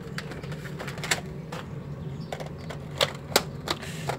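Nerf blaster being handled to clear a jam: a string of sharp, irregular plastic clicks and clacks, about eight over four seconds.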